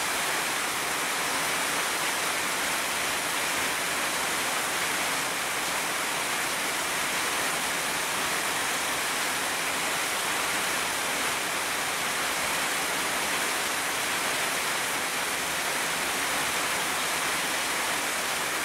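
Heavy rain falling steadily through tree foliage: an even, unbroken hiss.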